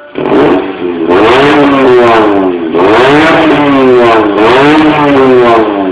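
Honda Stream RN1's 1.7-litre four-cylinder engine revved through a custom race muffler. The exhaust note comes in with a short blip, then rises and falls in pitch about three times.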